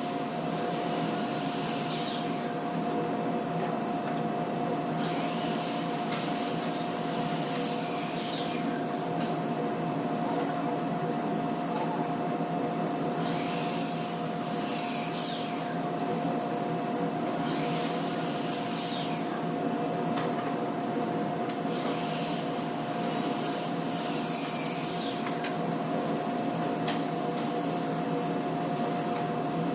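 An electric motor running steadily with a constant hum, while a high swishing sweep recurs at irregular intervals of a few seconds.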